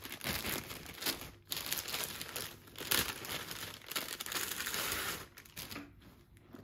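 Clear plastic packaging crinkling and rustling as it is handled and unwrapped, dense until about five seconds in, then quieter.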